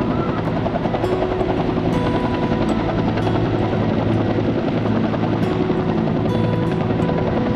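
Helicopter running steadily at close range: a rapid rotor chop over a steady whine with several held tones.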